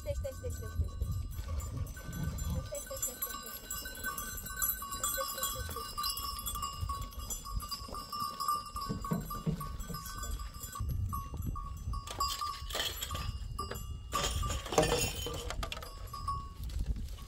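A herd of goats moving in close, their bells ringing steadily, with a few short bleats. A louder stretch of knocking and clatter comes about three-quarters of the way in.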